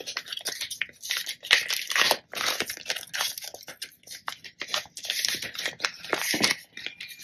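Thin clear plastic packaging crinkling and rustling in irregular bursts as it is handled and pulled open by hand.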